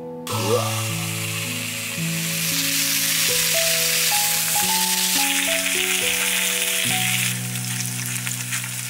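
Pork neck steaks sizzling in a hot frying pan over a portable gas burner, the sizzle starting a moment in as the meat goes into the pan. Slow piano music plays throughout.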